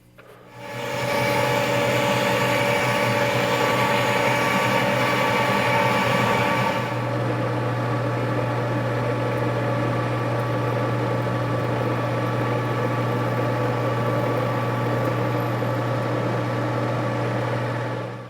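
A metalworking machine tool runs with a steady motor hum and a few fixed whining tones. For the first six seconds or so it carries a harsher, hissing noise on top, after which it runs smoother until it stops near the end.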